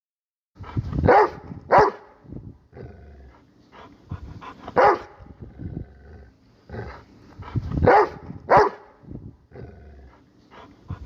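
A dog barking repeatedly: several loud barks with quieter, lower sounds between them.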